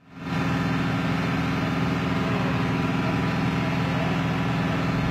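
Steady low mechanical hum made of a stack of even low tones, fading in at the very start and then holding unchanged.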